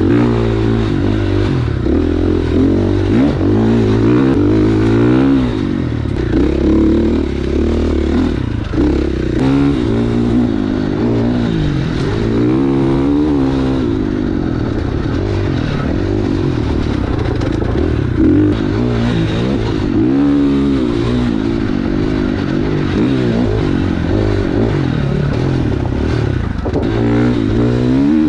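Husqvarna FX 450 dirt bike's four-stroke single-cylinder engine under way on a trail, its revs climbing and dropping over and over as the throttle is worked.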